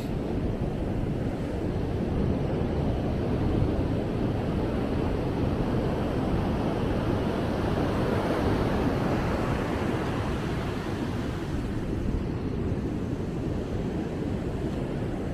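Ocean surf: a steady wash of breaking waves that swells over the first several seconds and eases off about two-thirds of the way through.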